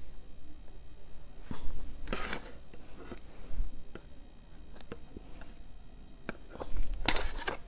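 Pencil and clear plastic ruler worked on fabric: scattered light taps and clicks as the ruler is set down and the pencil marks the cloth, with two short scratching, rubbing sounds about two seconds in and near the end.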